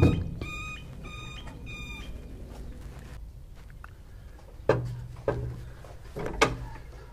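The rear door of a flatbed truck's rack, a steel square-tube frame panelled with aluminium sheet, being swung shut: a knock right at the start, then a few metal clanks and thuds about five to six and a half seconds in. Early on, four short high chirping tones repeat about every half second.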